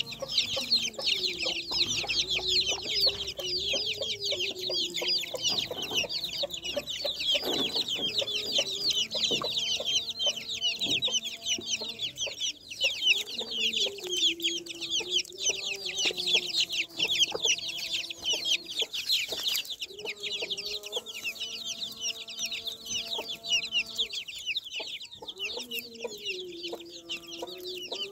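A brood of chicks peeping in a dense, continuous high chatter as they feed, with lower clucking from the mother hen coming and going underneath.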